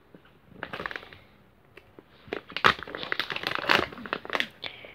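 Plastic candy pouch crinkling as it is pulled open by hand. There is a brief crinkle about half a second in, then a dense run of crackling crinkles through the second half.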